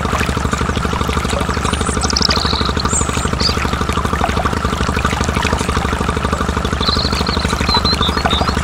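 Tractor engine running steadily at idle with a fast, even pulse. Thin high chirps slide over it about two seconds in and again near the end.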